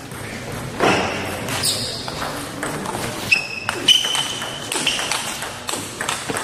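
Table tennis rally: a celluloid ping-pong ball clicking off the paddles and the table, hit after hit. A few brief high squeaks come from the players' shoes on the hall floor as they lunge, about three to five seconds in.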